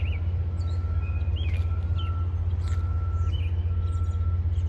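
A steady low engine-like rumble, with birds chirping and a high tone that keeps repeating in short pulses.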